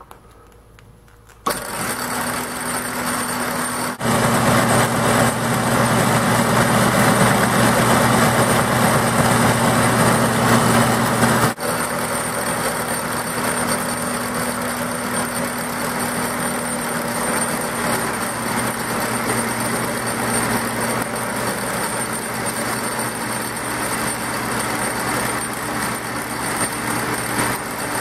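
A 3/4-horsepower, 3450 RPM electric motor switches on about a second and a half in and runs steadily under load, turning a car alternator through a V-belt. The sound steps up a few seconds later and eases back a little before halfway.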